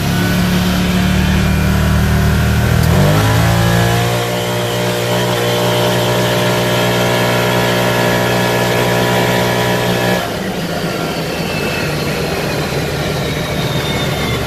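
Can-Am Maverick Trail 1000's Rotax V-twin engine and belt drive heard from inside the enclosed cab while driving. About three seconds in, the engine speeds up and then holds a steady, higher pitch. About ten seconds in, the throttle is let off: the engine note drops away and a faint whine falls in pitch.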